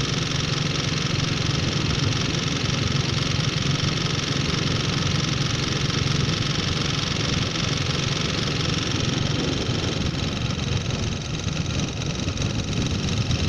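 Steady drone of a vehicle driving along a road: engine and road noise holding an even pitch and level, dipping slightly near the end.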